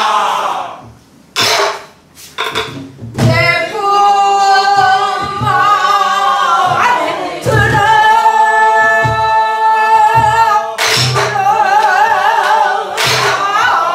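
A woman sings in the Korean namdo folk style with a wide, wavering vibrato. She is accompanied by slow, widely spaced strokes on a buk barrel drum in jinyangjo rhythm. About a second in the voice drops away for a moment, leaving a few sharp drum and stick strokes; near the end several voices sing together.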